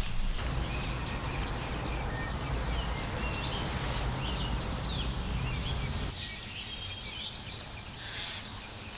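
Woodland birdsong: several small birds chirping and trilling over a steady low rushing noise. The rushing drops noticeably about six seconds in while the birds carry on.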